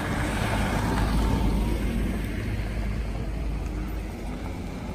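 A large 4x4 off-road vehicle driving past, its engine and tyre rumble swelling about a second in and then fading as it moves away.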